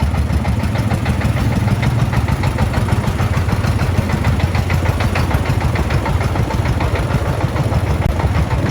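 Single-cylinder diesel engine of a Vietnamese công nông farm truck running steadily with a quick, even tặc-tặc beat, running very lightly.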